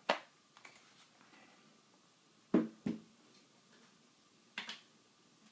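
Handling sounds of a plastic-bodied rifle and small parts on a table: a click at the start, two sharp knocks close together about two and a half seconds in, and a lighter click near the end.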